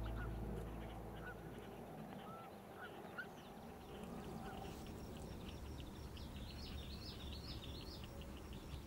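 Faint marsh ambience with scattered distant bird calls: short chirps in the first half, then a run of higher, quicker twittering calls from about halfway, over a low steady hiss.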